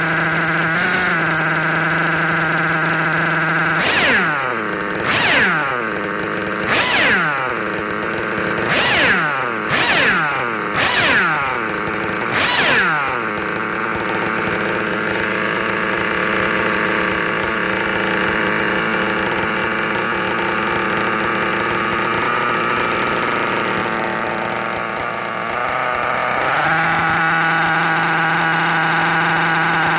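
Novarossi 28-7 two-stroke nitro engine running on a break-in stand through its tuned pipe, held at a steady speed. It is revved in about seven quick throttle blips, each falling back, then runs at a lower, uneven speed and returns to the steady higher speed near the end. These are break-in run cycles.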